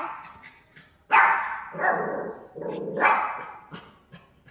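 A dog barking several times, short sharp barks about a second apart, the first and loudest about a second in.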